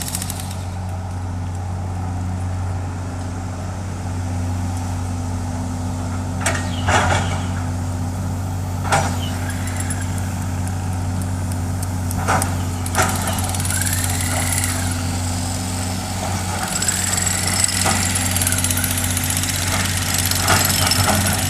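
Hydraulic excavator's diesel engine running steadily, with a few sharp knocks and several short rising-and-falling whines in the second half.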